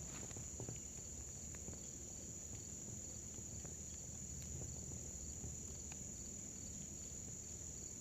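Insects, crickets, trilling steadily in a high continuous drone, with a fainter evenly pulsed chirp beneath it and a low rustle.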